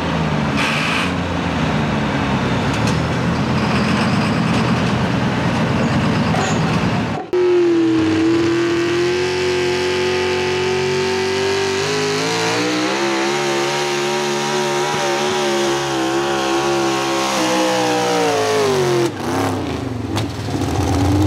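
Pulling engines at full throttle. First a pulling tractor's dense rumble. Then, after a cut about seven seconds in, a supercharged pulling truck's engine is held at high revs with a steady pitch that climbs slightly and then falls away, shortly before another cut near the end.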